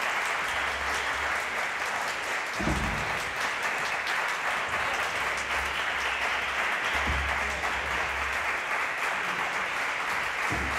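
Audience applauding steadily after a live jazz performance, with a few low thuds.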